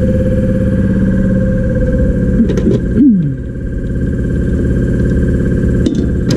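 A motor running steadily with a constant pitch, with a short falling whine about three seconds in and a few sharp clicks.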